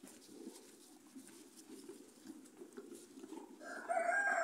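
Cows feeding from a trough, a soft crackly rustling and crunching of dry chopped stalks. Near the end a louder, high-pitched, drawn-out whine starts up and holds steady.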